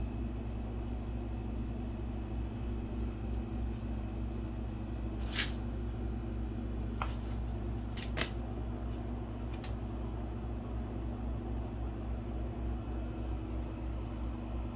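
Steady low indoor hum with a few sharp clicks scattered through it, about five and a half, seven, eight and ten seconds in: a French bulldog's claws tapping the laminate floor and baseboard as it paws at the wall.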